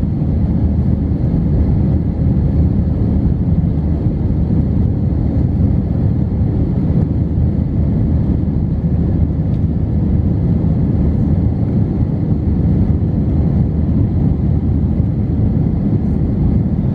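Airbus A320 cabin noise during the climb after takeoff: engine and airflow noise heard from a window seat over the wing. It is a steady low rumble that does not change in pitch or loudness.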